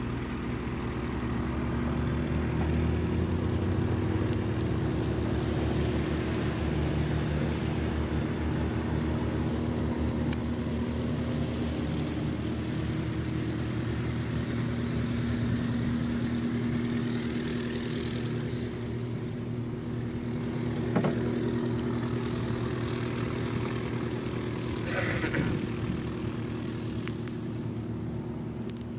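Tow plane's piston engine and propeller running steadily at takeoff power, pulling the glider down the grass strip and into the climb. A single sharp knock about two-thirds of the way through.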